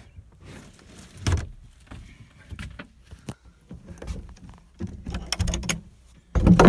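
Handling noises close to the microphone as the caravan's upholstered dinette seating and table fittings are moved about: a sharp knock about a second in, scattered rubbing and clatter, and a louder thump near the end.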